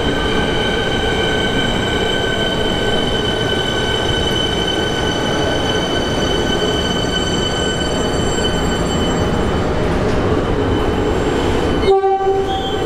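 Siemens Nexas electric train running at a platform: running noise with a steady electrical whine of several high tones that hold level. The sound breaks off about 12 seconds in and a short, lower tone follows.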